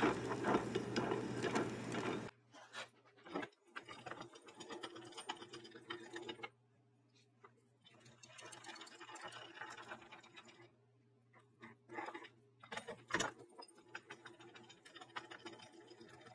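A loud continuous mechanical noise that cuts off suddenly about two seconds in, followed by quieter, irregular clicking and rattling from a mechanism being worked, over a steady low hum.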